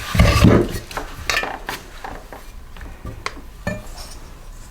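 Metal engine parts clinking and knocking against each other as they are handled, loudest at the very start, followed by a few separate sharp clicks.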